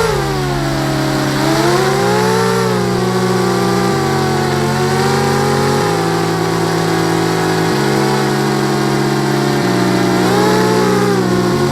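QAV250 racing quadcopter's electric motors whining, the pitch rising and falling as the throttle changes, over electronic music with a bass line that steps every couple of seconds.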